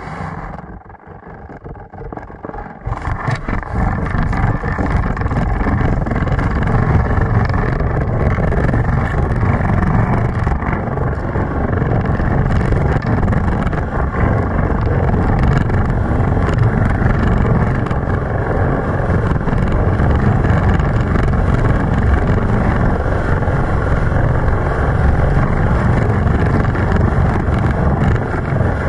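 A luge sled sliding down an ice track at speed, heard from on board: its steel runners rumble over the ice together with the rush of air. The sound is fainter and uneven for the first few seconds as the sled gets going, then settles into a loud, steady rumble.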